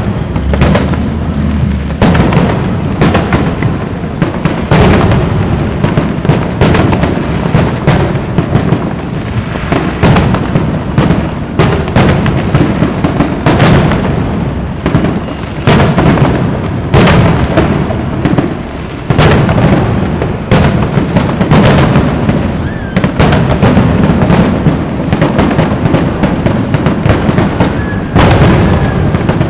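Aerial fireworks shells bursting in a rapid, near-continuous barrage: loud booms several times a second over a deep rolling rumble, with sharper cracks among them.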